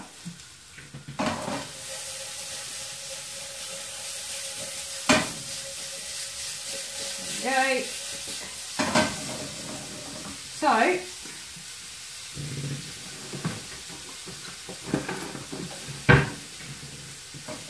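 Red deer sausages sizzling steadily in a frying pan. A few sharp knocks of a utensil against the pan come through, the loudest near the end.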